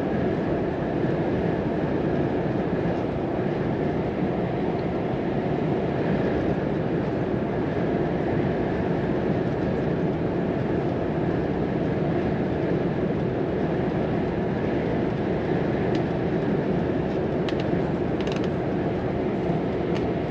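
Volvo FM 420's 13-litre six-cylinder diesel truck running at a steady cruise, with even road and tyre noise. A few short clicks near the end.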